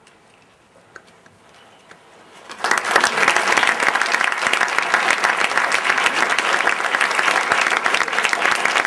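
Theatre audience breaking into applause about two and a half seconds in, after a few seconds of quiet with a few faint knocks; the clapping is dense and steady and greets the end of the play as the stage goes dark.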